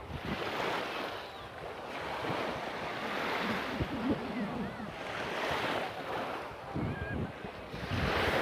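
Small sea waves washing onto a sandy shore, the wash swelling and fading every two to three seconds, with wind buffeting the microphone.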